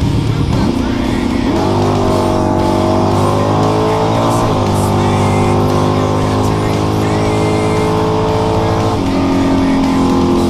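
Race car engine under load, its pitch climbing about a second in, dipping briefly near the middle, then holding steady before falling off near the end, with rock music playing over it.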